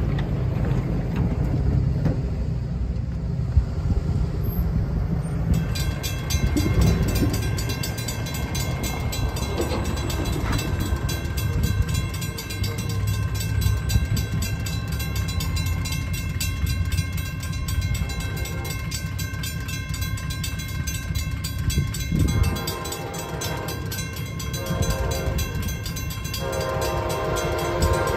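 Railroad crossing bell starts ringing rapidly about five seconds in as the gates lower, over a steady low rumble. From about two-thirds through, the approaching Amtrak Missouri River Runner's horn sounds in a series of long blasts.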